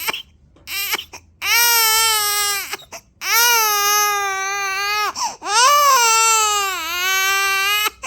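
Four-month-old baby crying from sleepiness: a few short cries about a second in, then three long wails of roughly one and a half to two and a half seconds each.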